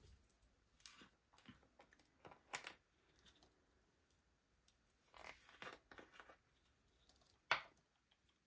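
Faint scattered taps and rustles of small craft supplies being handled, with a slightly louder tap about seven and a half seconds in.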